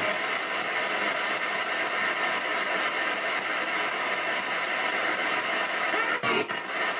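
Ghost box (spirit box) radio sweeping through stations in reverse sweep, giving a steady static hiss, with a brief break in the static about six seconds in.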